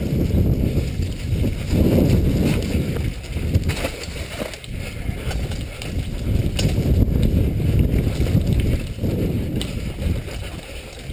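Downhill mountain bike descending a dirt trail: wind buffeting the camera microphone and tyres rumbling over the ground, in surges, with an occasional sharp rattle or knock from the bike over bumps.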